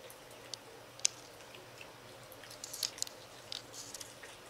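Otters chewing and biting raw salmon chunks: irregular wet clicks and smacks, the loudest about a second in, with a quick run of clicks around three seconds.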